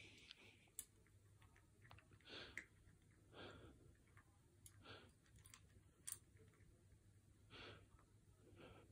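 Near silence: soft, slow breaths close to the microphone about once a second, and a few faint clicks of a cat crunching dry biscuits from her bowl.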